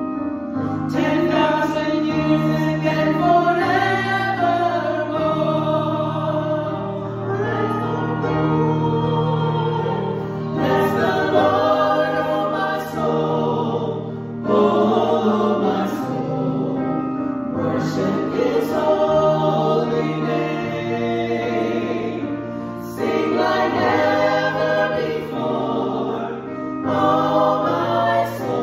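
Small ensemble of women singing a gospel song together in parts, phrase after phrase with short breaths between.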